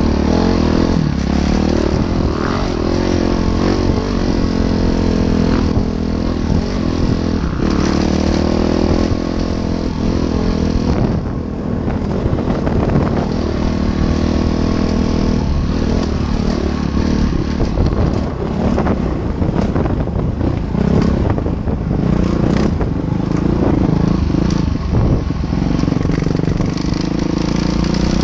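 Train on a bridge: a steady, loud rumble with a droning engine note and scattered clanks and clicks throughout.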